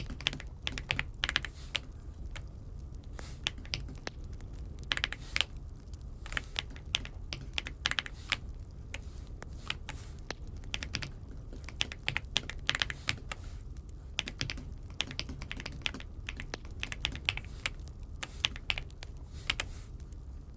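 Keys of an Aula F75 mechanical keyboard being typed on in irregular runs of clicks with short pauses, over a steady low hum.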